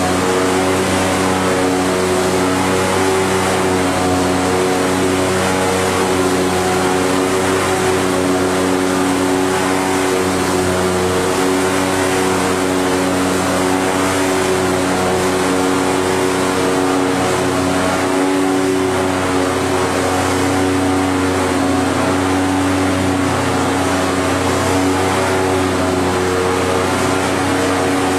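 Corrugated cardboard production line machinery running steadily: a constant hum of several steady tones over a noisy mechanical wash.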